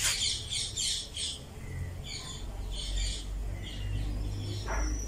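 Whiteboard marker squeaking and scratching across the board in quick short strokes, in groups. A thin high squeak is held for about a second near the end.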